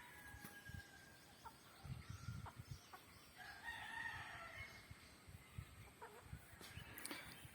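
A desi rooster crowing once, faintly, a long call about three seconds in, with soft clucking from foraging chickens.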